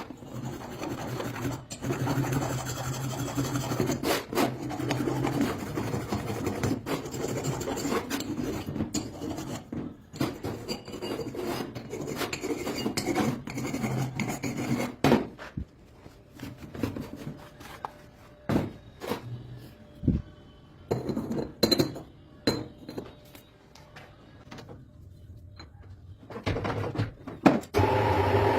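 Rasping, scraping work with a hand tool, continuous for about the first half, then giving way to scattered clicks and knocks.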